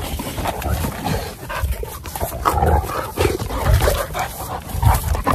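Cane Corso dogs growling and huffing at close range in rough play, a run of short low rumbles about once a second.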